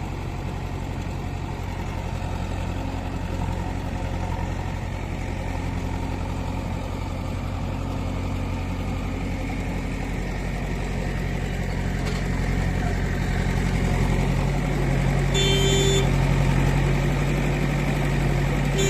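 JCB 3DX backhoe loader's diesel engine running steadily, growing louder over the last few seconds, with a short beep about three seconds before the end.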